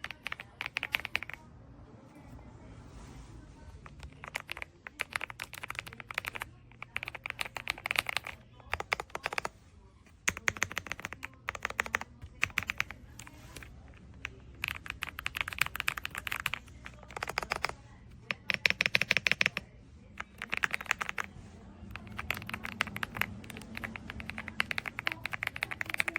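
Typing on an AULA S98 Pro mechanical keyboard: rapid runs of key clicks in bursts of a second or two, broken by short pauses.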